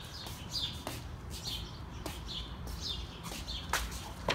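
A small bird chirping over and over, short falling chirps about twice a second, with a few sharp scuffs or footsteps on concrete toward the end.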